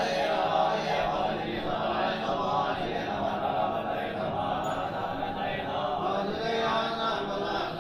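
Buddhist monks chanting together in unison during a Buddhist service, a steady, continuous group chant.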